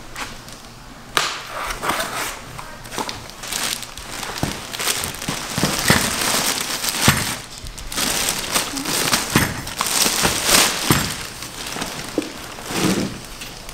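Clear plastic packaging bag crinkling and rustling as a folded stroller is pulled out of it and unwrapped, with scattered knocks and clatters of the stroller frame on a wooden floor.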